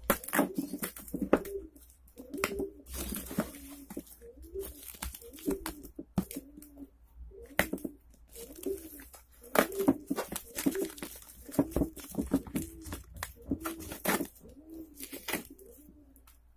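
Doves cooing over and over in low, arched calls, about one a second. Mixed with them are sharp clicks and rustles of plastic packing strap being cut and tape and a paper label being torn from a cardboard box.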